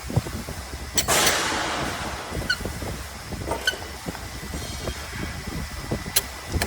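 Metal tools and parts knocking and clinking on a copper granulator during blade reassembly: a sharp click about a second in followed by a brief hiss, two short ringing metallic pings, and another sharp click near the end, over a low rumble.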